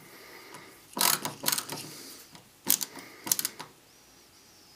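Screwdriver driving a small servo mounting screw through a 3D-printed plastic pan tray into a hobby servo: four short bursts of clicking and scraping.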